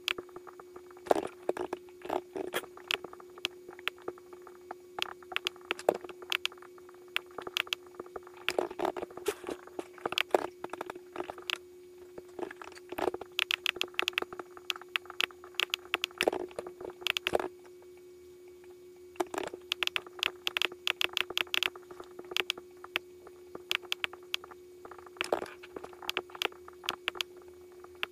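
Irregular bursts of sharp clicks, several a second, with short pauses between bursts, over a steady low hum.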